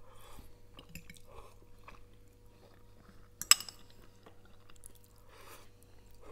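Two people chewing and slurping glass noodles (funchoza) with chicken and vegetables: soft, scattered wet mouth sounds, with one sharp click about halfway through.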